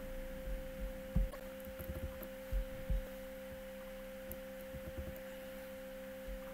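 Steady background hum: a clear mid-pitched tone with fainter lower tones beneath it, broken by a few soft low thumps about one, two and a half and three seconds in.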